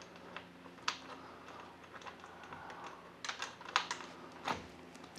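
Scattered light clicks and taps of a nut and washer being hand-threaded onto a bolt of a metal roof-rack bracket, with several close together from about three seconds in.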